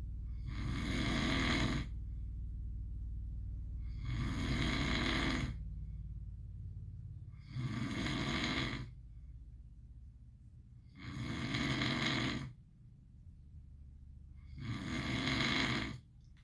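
Pit bull snoring in its sleep: five long, rasping snore breaths, about one every three and a half seconds.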